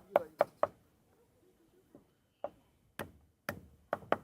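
Sharp knocks on a wooden work board during food preparation. There is a quick run of about four knocks in the first second, a pause, then further knocks about half a second apart from about two and a half seconds in.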